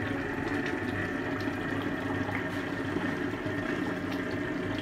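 Duck curry simmering in a karahi over a lit gas burner: a steady hiss with faint small pops and a low hum underneath.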